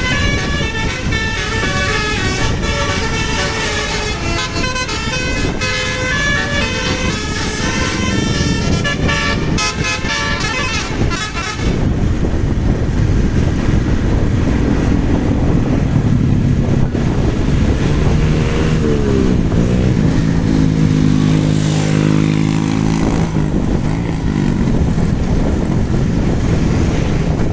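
Bus basuri telolet horn playing a fast melody of short stepped notes for about the first eleven seconds. It gives way to deeper, lower tones that bend up and down in pitch in the second half.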